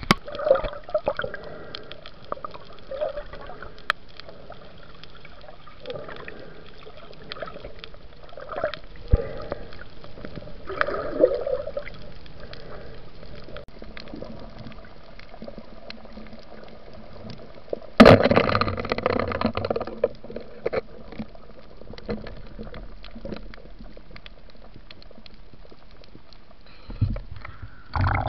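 Underwater sound picked up through a camera housing: water gurgling and bubbling with scattered faint clicks. About eighteen seconds in comes a louder rushing burst lasting about two seconds.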